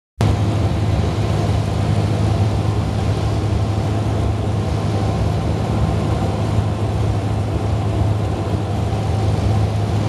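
Single-engine light aircraft's piston engine and propeller heard inside the cabin on final approach: a loud, steady drone with a strong low hum.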